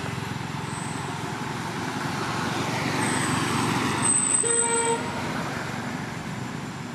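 A motor vehicle's engine running past, with one short horn toot about four and a half seconds in.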